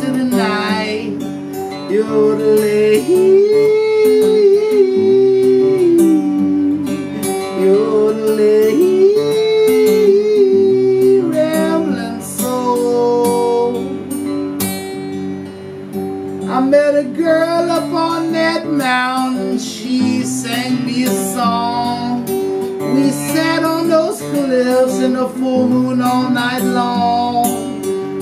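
Steel-string acoustic guitar strummed and picked, with a man singing a wordless melody over it.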